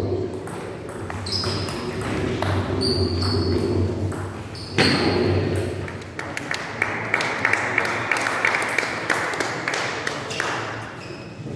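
Table tennis ball clicking off paddles and the table in a doubles rally, with the hits coming thick and fast over the second half, in a large hall.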